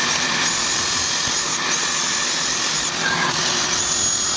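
Cordless drill boring into the wooden sleepers of a scale-model railway track, its high motor whine breaking off and starting again a couple of times. Under it runs a steady rushing noise from a vacuum nozzle held at the bit to pick up the dust.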